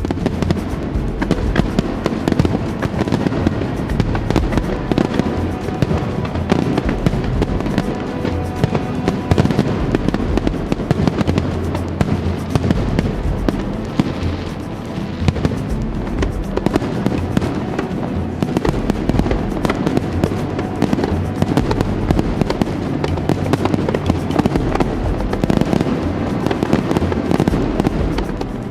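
Aerial fireworks bursting without pause: a dense run of crackling pops and booms.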